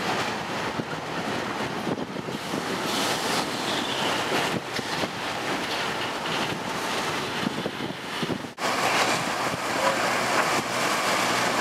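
Triple Crown RoadRailer intermodal train rolling past: a steady rush of wheel and rail noise. It briefly cuts out about two-thirds of the way through, then comes back louder and closer.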